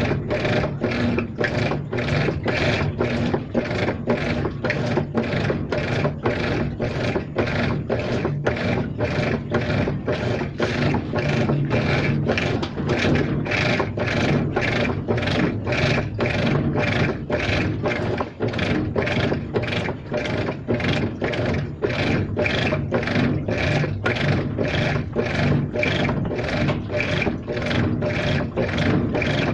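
Washing machine running, with a strange noise repeating in an even rhythm of about two beats a second.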